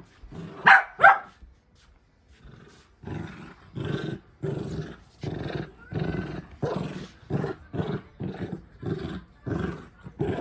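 Miniature dachshund giving two sharp barks about a second in, then a run of short growling yaps, about two a second, as in rough play.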